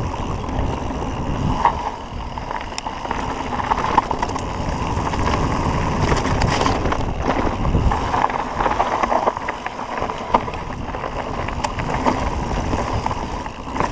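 Calibre Triple B mountain bike descending dirt singletrack at speed: tyres rumbling over the trail and wind on the chest-mounted camera's microphone, with scattered sharp clicks and rattles from the bike.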